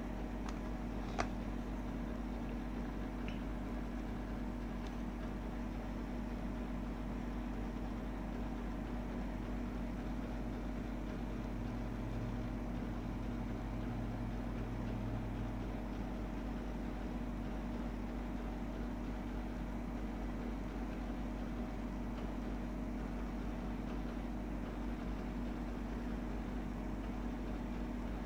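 Steady low hum of room or equipment noise with a faint steady whine over it, and a single sharp click about a second in.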